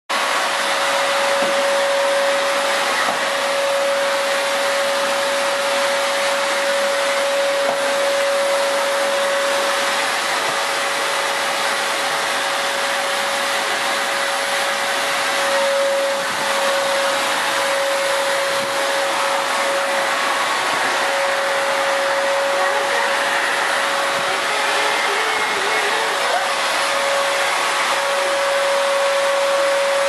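Canister vacuum cleaner running steadily: a constant rush of air with a steady whine from the motor.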